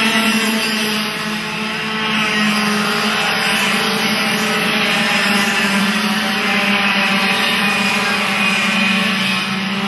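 Several racing karts' small two-stroke engines buzzing together at high revs as the pack races by, a dense, steady drone with a slight dip about a second in.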